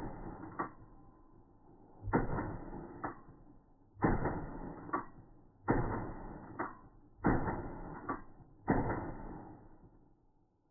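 Shotgun firing trap cartridges in quick succession: five shots about one and a half to two seconds apart. Each shot has a decaying tail and a fainter, sharp second crack less than a second after it.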